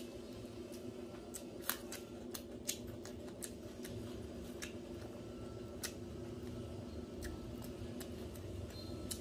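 Fingers mixing rice and chicken curry on a metal plate: scattered sharp clicks over a steady low hum.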